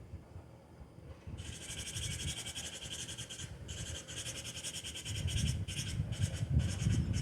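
Rapid, buzzy, pulsing animal call starting about a second and a half in, broken by a few short pauses, over a low rumble that grows louder toward the end.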